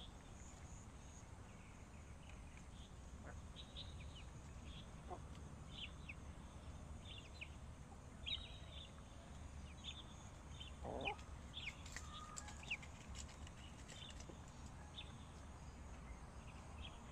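Hens clucking faintly, with a scatter of short high peeps and one lower, fuller cluck about eleven seconds in.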